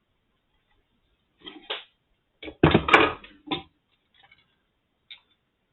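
Clicks and knocks from handling the casing parts of a Brüel & Kjær 2250 sound level meter. A few light clicks come first, then a louder cluster of knocks about two and a half seconds in, and a couple more single clicks near the end.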